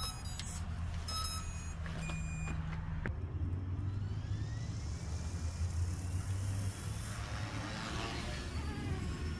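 A few short electronic beeps as the battery is connected to a Goosky S2 RC helicopter. About three seconds in, the helicopter's electric motors start to whine, rising slowly and steadily in pitch as the rotor spools up, over a steady low rumble.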